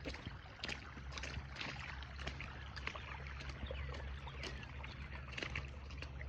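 Floodwater splashing and trickling, with irregular small splashes of moving through shallow water over a steady low hum.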